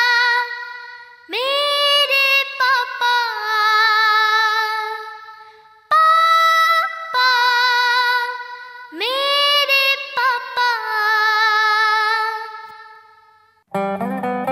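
A song with a high voice singing long, held notes with vibrato, in four slow phrases that each fade away, with no audible accompaniment. Near the end an acoustic guitar strum comes in.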